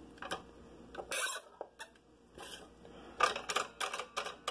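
Light clicks and short scrapes of a scroll saw's blade and clamp being handled as the blade is threaded through a drilled hole and clamped in, with the saw switched off. A quick run of clicks comes near the end.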